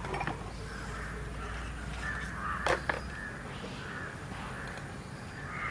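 Crows cawing repeatedly in the background, with one sharp click a little under three seconds in.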